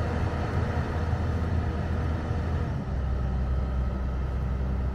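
Caterpillar excavator's diesel engine running steadily while it works a hydraulic screw-pile drive head. The deep engine note shifts and settles about three seconds in.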